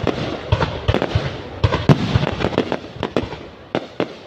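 Fireworks going off: a rapid, irregular string of bangs over steady crackling, thinning out near the end.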